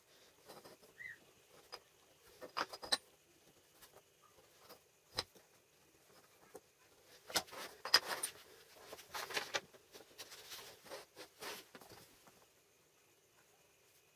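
Light workshop handling noises: scattered clicks, taps and short scrapes, busiest around the middle, with a faint short chirp about a second in.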